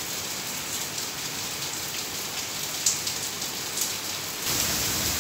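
Heavy rain pouring onto a flagstone patio: a steady rushing hiss with a few sharp close drop ticks. About four and a half seconds in it becomes louder and fuller.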